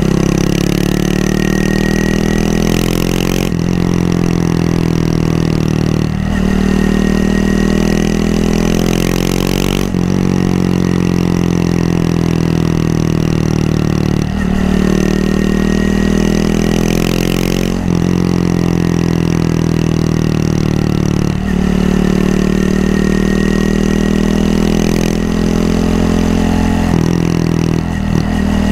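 Honda Monkey 125's single-cylinder four-stroke engine running under way, loud and steady, its pitch sagging slowly and then changing suddenly every three or four seconds.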